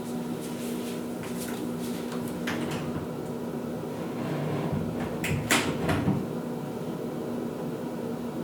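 Bathroom ventilation fan running with a steady hum and air noise. A few faint clicks come early on, and a louder knock-like clatter comes about five and a half seconds in.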